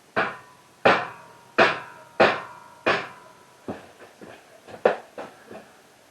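A run of sharp metal knocks, five strong blows evenly spaced about two-thirds of a second apart, each leaving a short ringing tone, followed by lighter and less regular knocks. The ringing marks struck metal.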